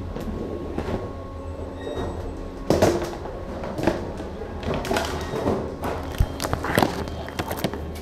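Security X-ray baggage scanner's conveyor belt: a steady low motor hum, with irregular knocks and clatter as items ride through the tunnel and brush past its curtain flaps. The loudest knocks come about three seconds in and again near the end.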